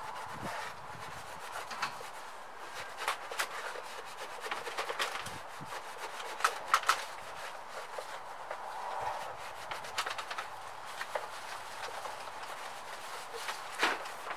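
A cloth rag rubbing and wiping over the metal tank of a small air compressor, cleaning off grime. It makes an irregular swishing with scattered small scrapes and knocks, the sharpest a few about halfway through and again near the end.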